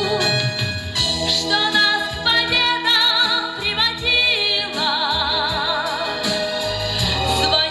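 Music without words: a slow melody held in wide vibrato over a fuller accompaniment.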